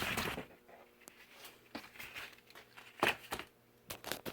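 A new cardboard-framed furnace air filter being handled, with rustling and scattered crinkling clicks, the loudest a quick pair about three seconds in.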